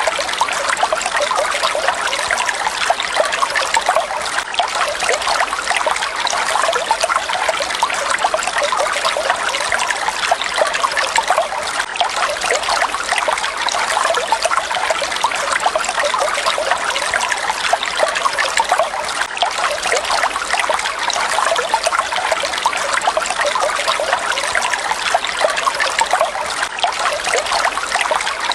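Falling water splashing steadily, a dense, even trickling rush with no breaks.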